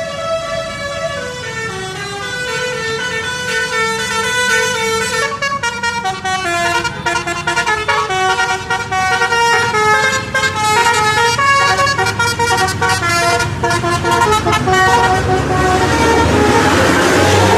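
Indonesian 'telolet' bus horn, a Basuri multi-tone horn on roof-mounted trumpets, playing a tune of stepped notes. A low hum runs underneath, and a rushing noise swells over the last couple of seconds.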